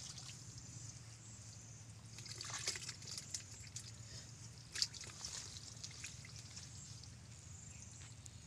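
Hands groping in shallow muddy water, making small irregular splashes and drips, with a cluster of them about a third of the way in and a sharper splash a little past the middle.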